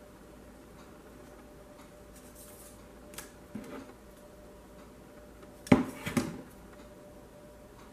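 Hard plastic clicks and knocks as the air fryer's black plastic protector and one of its small clip pieces are handled: a few faint clicks about three seconds in, then two sharp clicks about half a second apart near six seconds.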